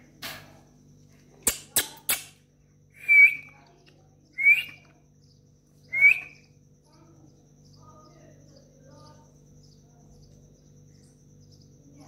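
Indian ringneck parrot giving three loud, short calls about a second and a half apart, after three sharp clicks.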